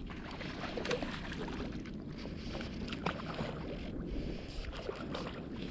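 Faint rustling with scattered light, irregular clicks from fly line being hand-stripped and handled on a fly rod while a hooked trout is played, over a low steady rustle.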